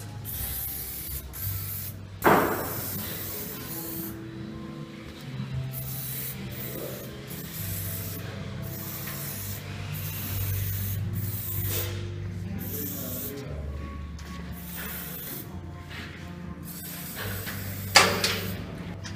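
Aerosol lubricant can spraying in repeated short hissing bursts onto a sawmill's metal sliding surfaces, over background music. Two sharp knocks stand out, one about two seconds in and one near the end.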